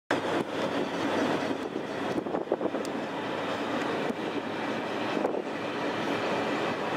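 Engine of a traditional boat running steadily.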